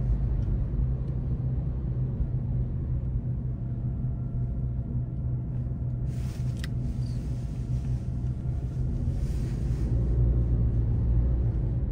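Inside a car driving along: a steady low engine and road rumble, with a brief rush of hiss a little past halfway.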